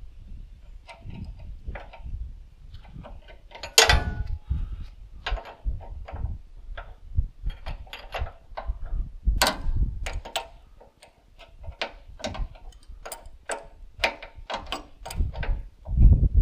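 Irregular metallic clicks, clinks and knocks of hand tools and fittings being worked on a tractor's hydraulic hoses, a few a second, with two louder clanks about four and nine seconds in.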